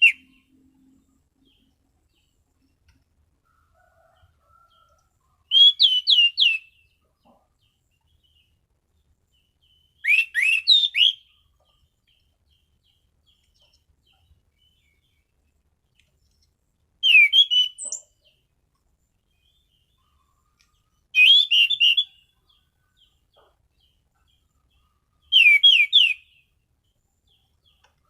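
Orange-banded thrush (anis cendana) singing in short loud phrases, five bursts of about a second each, with faint soft notes in the pauses between them.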